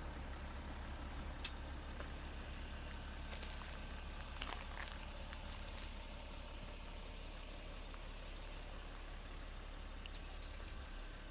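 Steady low rumble of road and engine noise from inside a moving car, with a few faint clicks.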